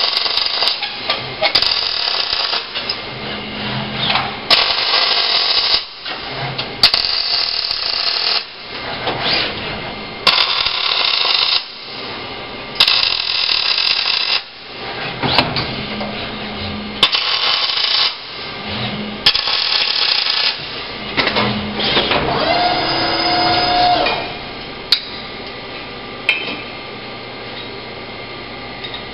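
OTC robotic MIG welder's arc crackling through a series of short welds, each about a second long with brief pauses between, for about twenty seconds. Near the end the welding stops and a rising motor whine follows as the robot arm swings to the other station, then a few clicks.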